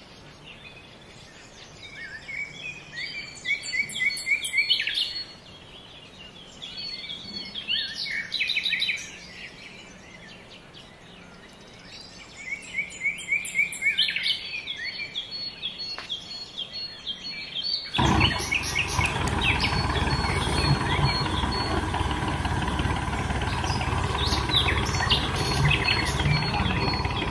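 Birds chirping in three short bursts. About two-thirds of the way through, a loud, steady whirring with a low hum starts suddenly and runs on: the electric motors of the wired toy tractors pulling against each other.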